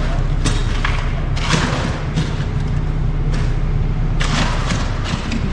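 Heavy machine engine running steadily with a low rumble, with short bursts of noise over it about half a second, one and a half seconds and four seconds in.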